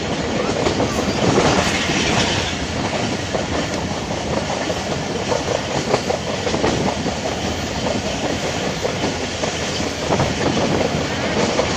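Passenger train running at speed, heard from on board: a steady rumble and rush of wheels on the track, with repeated clatter as the wheels pass over the rails.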